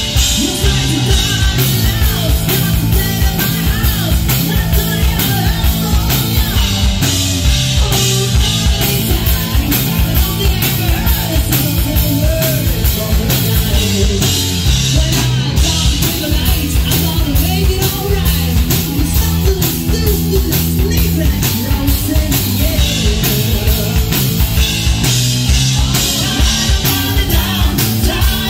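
Live rock band playing loud: drum kit keeping a steady driving beat under electric guitar and bass, with a man singing lead.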